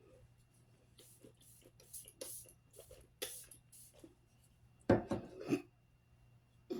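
Several short hissing spritzes from a pump-mist makeup setting spray over a couple of seconds, then a louder breathy sound about five seconds in.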